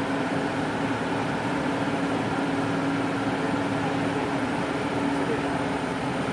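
Long-boom excavator's diesel engine running steadily, with a constant low hum.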